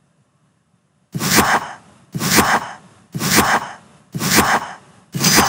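Countdown timer sound effect: five short, noisy, hissing beats, one each second, starting about a second in.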